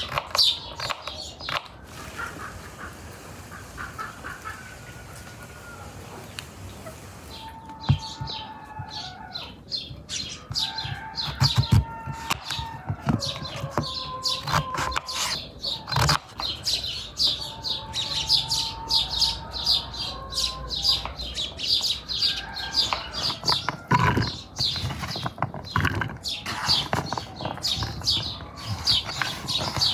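A knife cutting beets on a wooden cutting board: a string of short, sharp strokes, quieter in the first few seconds and thicker from about eight seconds in. Birds and chickens call in the background.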